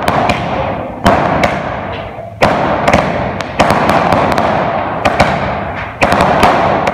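Aerial fireworks bursting overhead: sharp loud bangs, often in pairs, about once a second, each trailing off.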